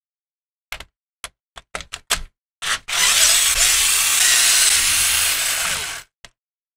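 A few short clicks, then a Ryobi cordless screwdriver runs for about three seconds, driving a bolt into the CNC gantry's aluminium plate.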